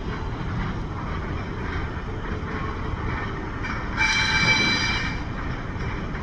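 Diesel switcher locomotives of the Juniata Valley Railroad rumbling steadily as they pull a train toward the crossing. About four seconds in, a brief, louder burst of high ringing tones lasts about a second.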